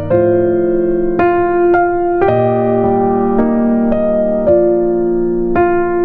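Background music: keyboard notes held and changed about once a second in a slow, even pattern.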